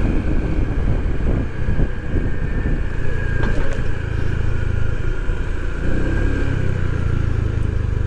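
Motorcycle engine running steadily while riding, a low even drone that rises and falls only slightly.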